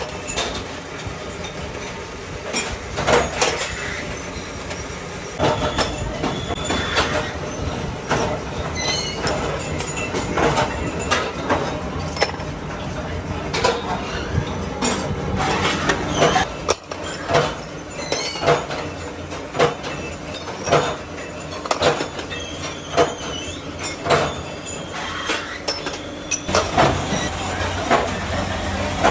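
Thread-rolling machine running steadily as it rolls threads onto steel rotor shafts, with frequent irregular metallic clanks and knocks over a constant machine hum.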